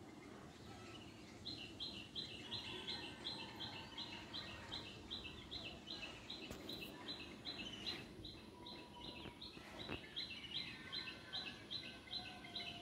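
A bird calling a short two-part high note over and over, about three times a second, starting about a second and a half in. Fainter birds call behind it over a steady outdoor hiss.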